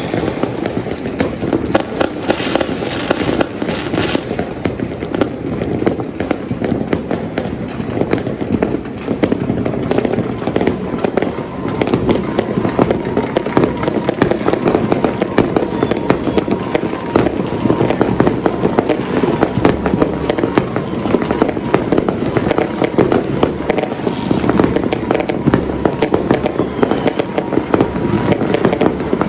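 Chinese New Year firecrackers and fireworks going off in a dense, continuous barrage: countless sharp cracks and bangs running together without a pause.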